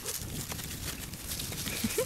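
Tamaskan puppy brushing and bumping against the camera microphone, giving a low, rough rumble of fur and handling noise with scattered rustles and clicks; a brief squeak near the end.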